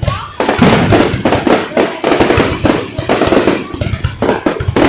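Fireworks display going off in a dense barrage: rapid sharp bangs and crackles, several a second, without a break.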